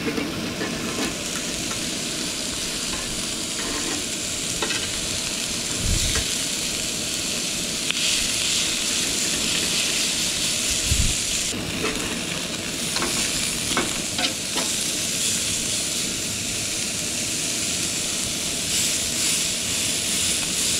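Beef burger patties sizzling steadily on a griddle over a Coleman two-burner propane stove, with a few light clicks scattered through.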